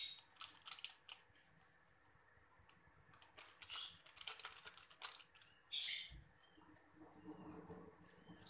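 A metal fork scraping and clicking against a frying pan as dry instant noodles are stirred, in short scratchy spells with pauses between.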